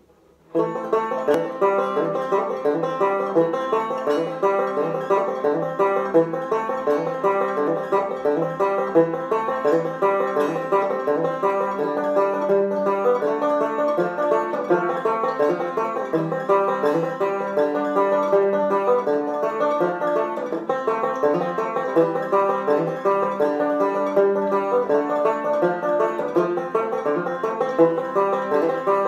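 Solo banjo playing a quick, steady run of plucked notes, starting about half a second in and going on without a break.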